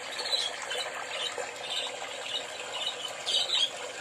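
Water rushing and splashing along the hull of a moving boat, a steady wash with irregular sharper splashes.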